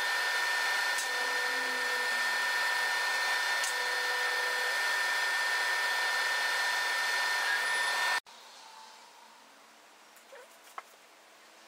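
Laser cutter running: a steady whir of its fans with steady whining tones, and a short lower hum that comes and goes every couple of seconds as the head moves. About eight seconds in it cuts off abruptly to a much quieter room with faint handling sounds.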